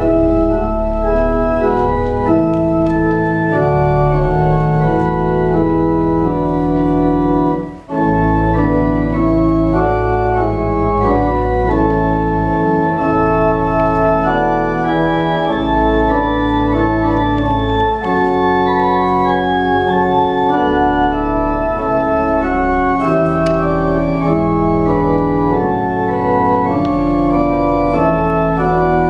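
Church organ playing a slow piece in held chords, with a brief break between phrases about eight seconds in.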